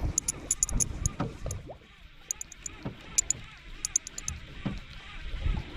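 Water slapping against a drifting fishing boat's hull, with irregular low thumps and, several times, quick clusters of sharp high ticks.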